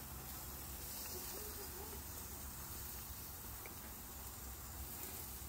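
Faint, steady background noise: a low hum with a hiss over it, and nothing standing out.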